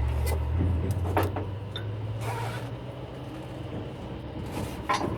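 Heavy-equipment engine running steadily with a low hum, a deeper note for about the first second, and a few clanks and short hisses.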